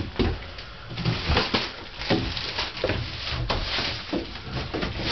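Footsteps of someone going down a staircase, with knocks and rustles from handling the camera: an irregular run of short thumps and scuffs.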